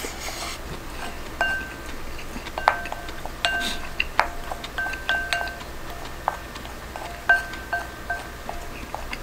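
A spoon scraping and tapping against a ceramic rice bowl while eating. There are a dozen or so separate taps, each leaving a short ringing tone from the bowl.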